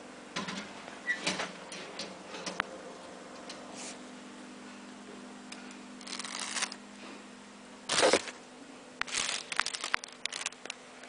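Clear plastic protective seat covers crinkling and scattered clicks of handling inside a vehicle cab, over a steady low hum. The loudest rustle comes about eight seconds in, with another shorter one a little earlier.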